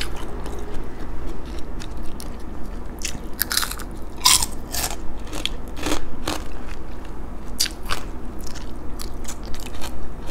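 A person chewing and biting crunchy food close to the microphone: irregular crisp crunches and mouth sounds, busiest in the middle.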